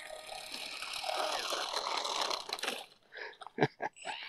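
Small electric motor and propeller of a foam RC flying-wing plane running steadily as it taxis on its steerable nose wheel. About three seconds in the sound drops away and a few sharp clicks follow.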